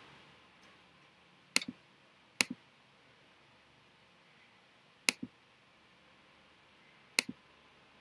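Four sharp double clicks, each a quick pair of taps, spaced unevenly one to two and a half seconds apart, over faint room tone.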